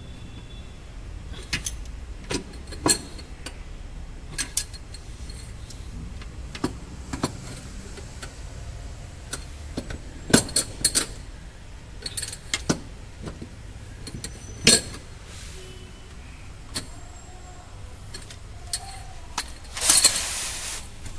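Irregular metallic clinks and clicks from a socket wrench on a long extension tightening the transmission crossmember bolts, with a brief louder burst of noise near the end.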